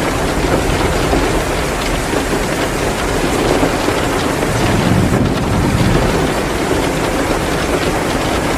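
Heavy downpour, a dense steady hiss with a low rumble that swells briefly around five seconds in, and a wood fire crackling underneath.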